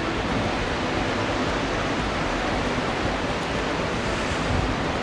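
Steady rushing noise of strong wind and a rough, whitecapped sea, with the wind buffeting the microphone.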